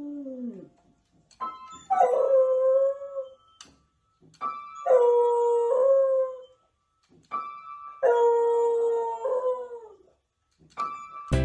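A dog howling along to notes played on a keyboard: a short note, then a long howl, three times over. The first howl trails off falling in pitch, and busy music cuts in near the end.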